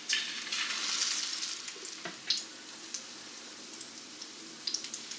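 A slice of egg-and-milk-soaked bread laid into hot vegetable oil in a frying pan: a sudden burst of sizzling that eases after a second or so into steady frying, with scattered pops and crackles.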